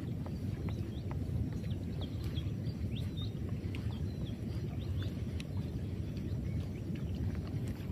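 Many short high bird chirps scattered over a steady low rumble of wind and water.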